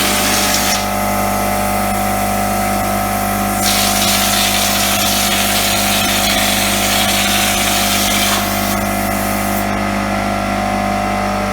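A power tool's motor running steadily with a constant hum under a hiss. The high part of the hiss drops away twice, for a few seconds each time.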